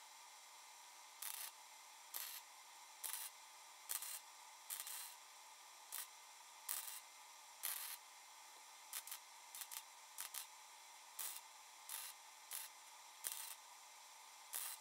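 Welder laying a quick series of short tack welds on thin sheet steel: about eighteen brief buzzing bursts, each a fraction of a second, at irregular gaps of roughly a second, over a steady faint hiss.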